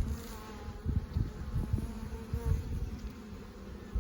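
Honey bees buzzing around an open hive during a frame inspection, a wavering hum over low, irregular rumbling.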